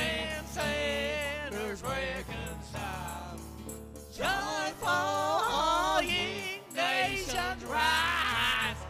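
A choir singing a song with musical backing, the sung notes wavering with vibrato in phrases of a second or two.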